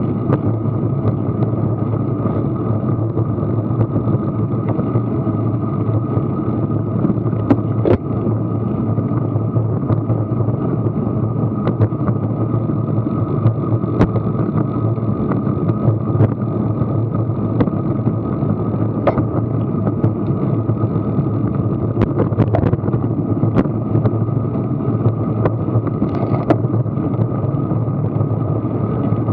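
Steady wind rush and road noise picked up by an action camera on a bicycle riding at about 15 mph, with scattered sharp clicks and knocks.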